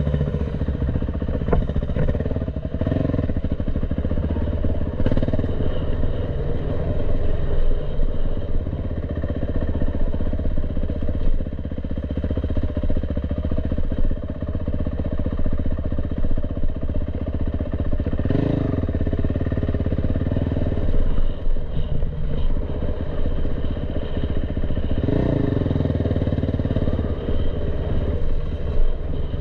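Dirt bike engine running steadily while riding a dirt trail, the revs rising briefly about two-thirds of the way through and again near the end.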